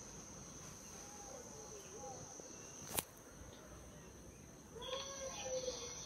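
Steady high-pitched insect chirring, with faint voices talking, a single sharp click about three seconds in, and the voices growing louder near the end.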